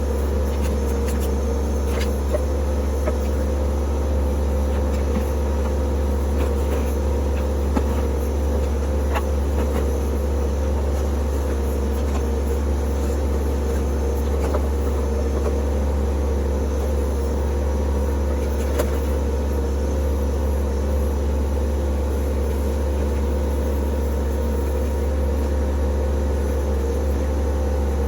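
Compact diesel tractor engine running at a steady idle, a constant low hum with a few faint clicks and knocks over it.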